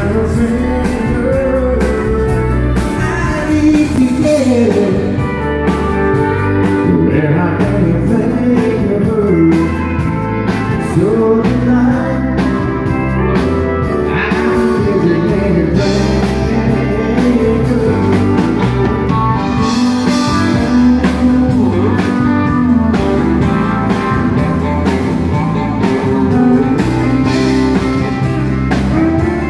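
Live country band playing: acoustic and electric guitars, pedal steel guitar and drums, loud and steady, with gliding melody lines over the beat.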